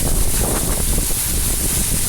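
Heavy rain hissing steadily while strong wind buffets the microphone with a low, uneven rumble.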